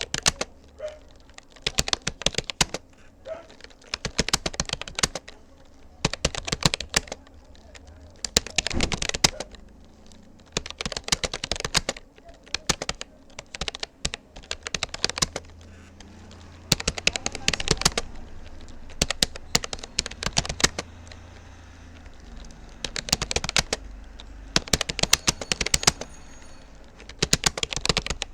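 Typing on a Rapoo computer keyboard: quick runs of key clicks lasting a second or two each, broken by short pauses.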